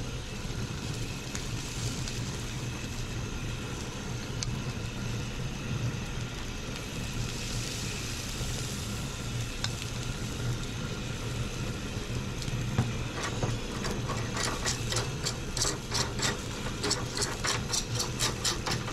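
A steady low hum under a noisy background. About fourteen seconds in, a run of quick, crisp rubbing strokes begins, several a second.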